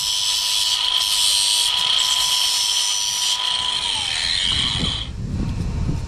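Handheld angle grinder running at full speed with a steady high whine, cleaning up the cut on a plastic lock sleeve. About four seconds in it is switched off and winds down.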